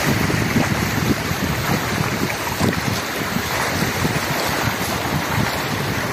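Steady rushing of brown floodwater flowing fast over paved ground, mixed with wind buffeting the phone's microphone in an uneven low rumble.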